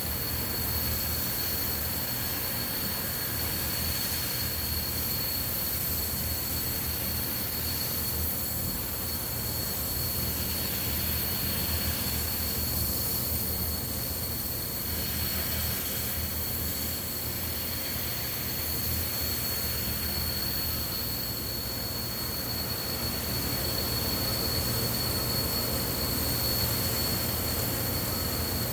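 Pulsed MIG welding arc burning steadily inside a 24-inch steel vessel: a continuous hissing buzz with a steady high whine and low hum, ringing in the enclosed steel shell.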